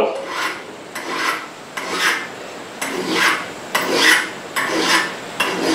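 Hand file rasping on a steel knife tang held in a vise, in about seven even strokes a little over one a second, tapering the end of the tang into a rat-tail tang.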